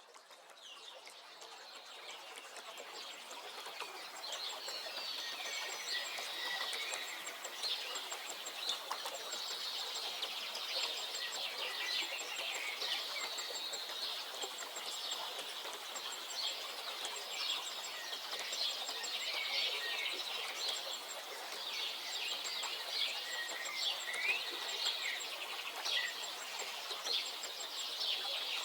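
Chorus of songbirds singing and chirping, many short overlapping calls and trills, fading in over the first few seconds.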